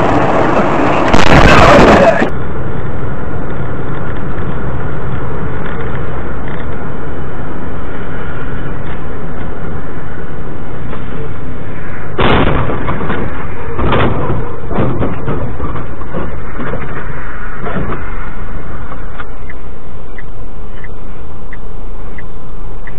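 A loud crash about a second in as a semi-trailer truck slams into an oncoming van. It is followed by steady, loud road and engine noise inside a vehicle driving on a snowy highway, with two sharp knocks a second and a half apart about halfway through.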